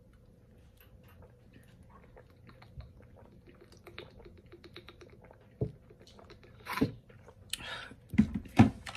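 A person drinking water: faint small clicks at first, then a few louder gulps and short breaths near the end, as she cools the burn of spicy noodles.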